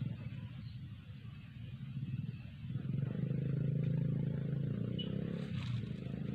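A motor engine running steadily with a low hum, growing louder about three seconds in.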